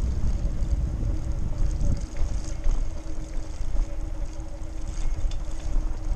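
Wind rumbling on the microphone of a camera mounted on a Lime electric hire bike, with tyre noise from riding along a tarmac path. A steady low hum and light rattles sit under the rumble.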